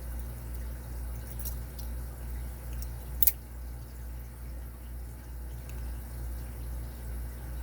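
Steady low hum with one sharp click about three seconds in, from small padlock parts being handled while the lock is taken apart.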